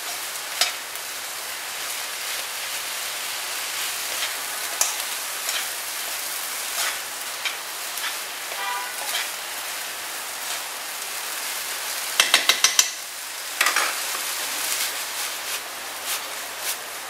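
Vegetable and soy vermicelli filling sizzling in a frying pan while it is stirred and separated, with scrapes and clicks against the pan. About twelve seconds in comes a quick run of about five sharp taps, then another clack.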